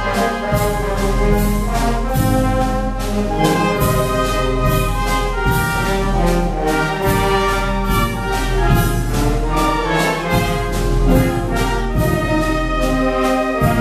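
Oaxacan village wind band playing a bolero: clarinets, trumpets and trombones carry the melody over tubas, with regular strokes from a bass drum and snare drum.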